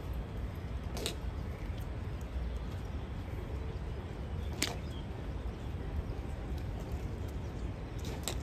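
Sharp clacks of honor guard drill: one about a second in, another past the middle, and two in quick succession near the end, over a steady low rumble.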